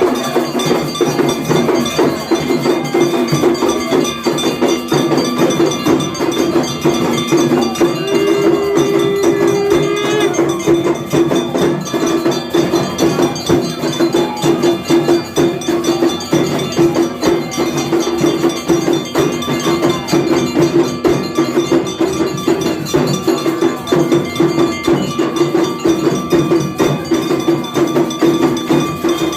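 Temple bells of a Hindu aarti clanging rapidly and without a break, with struck percussion beating along in a fast, steady rhythm.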